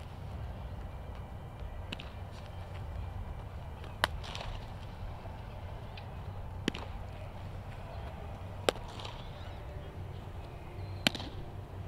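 Baseball popping into a catcher's mitt: five sharp smacks spaced two to two and a half seconds apart, the ones about four, nine and eleven seconds in the loudest, over a steady low background rumble.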